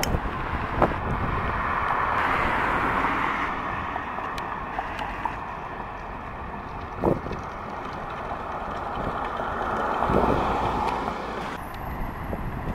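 Fire rescue truck driving past on a wet road among other traffic, with wind buffeting the microphone and a few sharp knocks.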